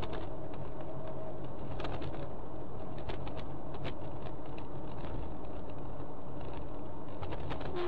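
Steady engine and road noise inside a moving car, picked up by a dash camera, with a low hum and scattered small clicks and rattles.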